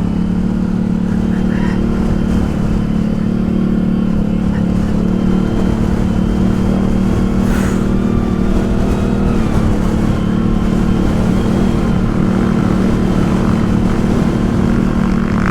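ATV engine running under way with a steady drone, its pitch holding nearly constant.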